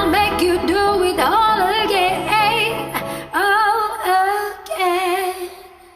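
A woman singing long, wavering held notes with vibrato over a pop backing track, as a karaoke cover ends. The backing drops away about three seconds in, and the last held note fades out near the end.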